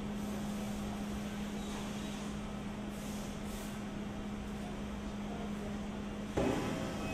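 Industrial laundry machinery running: a steady mechanical noise with a constant low hum. About six and a half seconds in, the sound shifts suddenly with a brief louder rush of noise.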